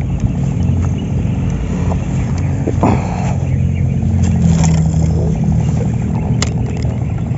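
Small motorized boat engine running steadily.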